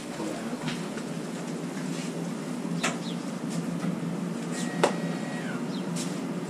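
Light knocks and clicks of a MK1 Golf cabriolet's metal roof frame being handled and lifted off the car, with one sharp click about five seconds in, over a steady low hum.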